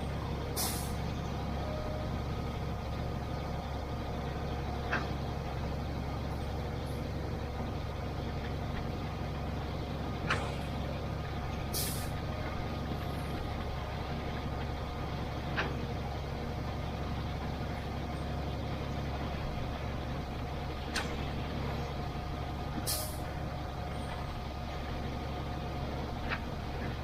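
Concrete pump truck running steadily under load, with a short knock about every five seconds and a brief high hiss about every eleven seconds.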